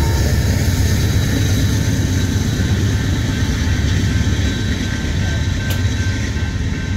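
Union Pacific freight train rumbling away after its rear diesel locomotive clears the crossing, slowly fading, while the grade-crossing bell rings on.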